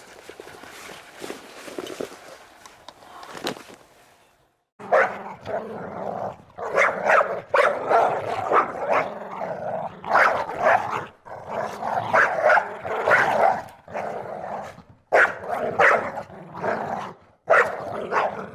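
Dog panting softly, then from about five seconds in a dog barking and growling in repeated loud bursts.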